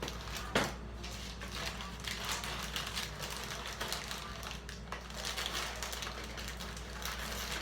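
Plastic snack wrappers crinkling and rustling as packages are handled, with a sharper crackle about half a second in.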